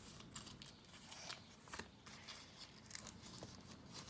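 Faint rustling and creasing of a sheet of paper being folded by hand, with a few short crinkles.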